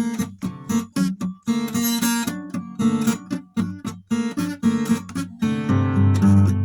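Guitar instrumental: chords plucked and strummed in a steady marching rhythm, short chords with brief gaps between them, and a fuller held chord near the end.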